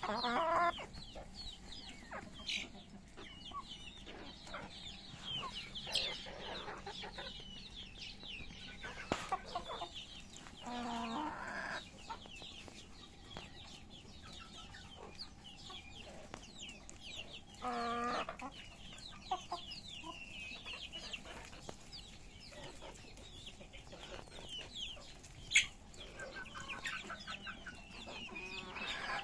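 Chickens clucking and peeping while they feed, with many short high falling peeps throughout and two louder clucking calls, about a third and two-thirds of the way through. A single sharp click comes near the end.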